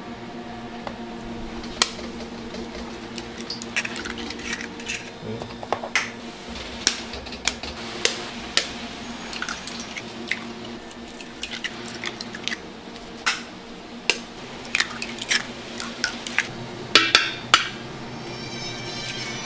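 Raw eggs being cracked one after another and emptied into a large stainless steel mixing bowl already holding a pool of eggs. The cracks of the shells come as sharp clicks, irregularly spaced, about one a second or faster.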